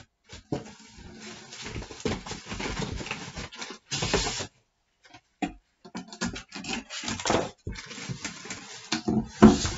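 Cardboard packing being pulled out of a printer box: irregular rustling, scraping and knocking, with a louder rush of rustle about four seconds in and a sharp knock near the end.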